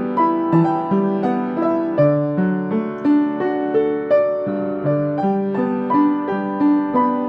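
Piano music: a melody over chords, with notes struck about twice a second.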